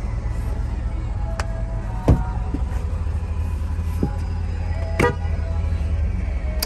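Toyota 1KZ-TE 3.0-litre turbo diesel idling steadily, heard from inside the cabin. Over it come a few sharp clicks of the cabin switches being pressed, with a louder thump about two seconds in.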